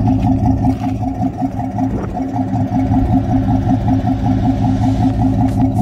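An engine idling steadily, with an even, rhythmic pulse several times a second.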